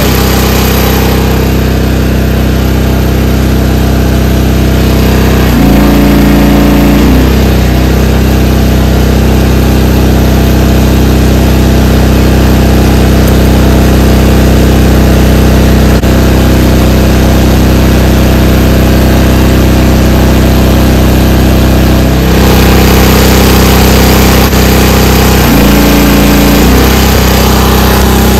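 Huayee HY14C mini excavator's engine running steadily with the throttle well up. Twice its speed pulls down for about a second and a half and then recovers, as a hydraulic function is held at the end of its stroke and the pump loads up against the relief valve at full pressure.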